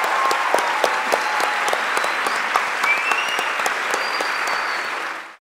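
Audience applauding: a dense, steady clatter of many hands clapping, cutting off suddenly near the end.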